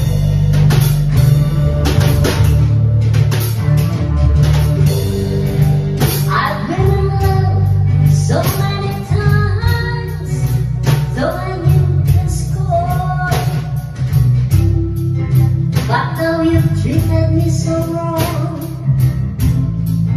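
A woman singing into a microphone over music with guitar and drums; her voice comes in about six seconds in after an instrumental opening.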